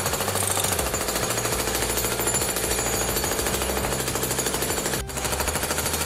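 Fast, steady rattling of a power-tool sound effect, like a drill or jackhammer, laid over animated sparks as a toy part is worked on. There is a short break about five seconds in.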